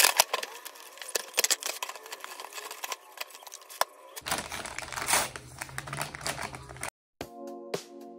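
Crackling and clicking of a paper takeaway bag and clear plastic food containers being handled and their lids pulled off. About seven seconds in it stops, and background music with a steady beat starts.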